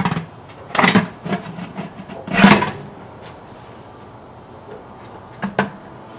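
Tin cans scraping and clanking against each other as a metal can cover is worked down over a tin-can rocket stove: two loud scrapes in the first few seconds, then a short double clink near the end.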